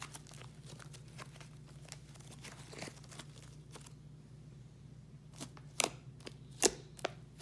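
Slime being squished and stretched by hand: faint crackles throughout, with a few louder sharp pops in the last couple of seconds.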